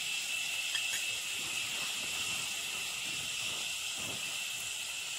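Crushed onion, garlic, chili and coconut frying in coconut oil in a clay pot, making a steady sizzling hiss while a steel spoon stirs the mixture.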